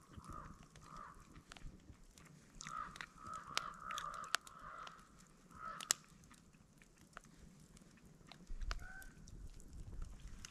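Faint, repeated honking of distant geese, with a louder two-toned call about nine seconds in. Sharp crackles and pops from a burning log fire come through at the same time.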